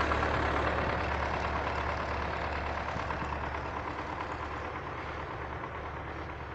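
Heavy diesel vehicle engine running steadily, its sound gradually fading away.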